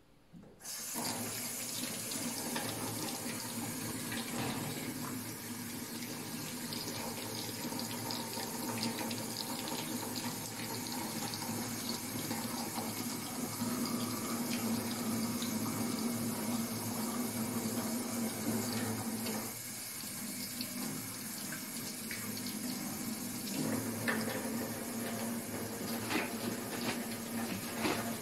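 Tap water running from a faucet into a stainless steel sink as hands are washed under the stream, a steady splashing flow that starts about a second in, with a steady low hum beneath it.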